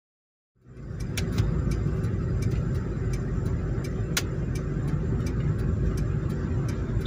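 Car engine and low road rumble heard from inside the cabin while creeping forward at low speed, with scattered light clicks. The sound fades in from silence about half a second in.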